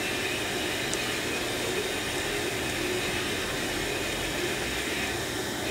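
Steady whooshing hum of a fan running in the workshop, even throughout, with a couple of faint small ticks near the start.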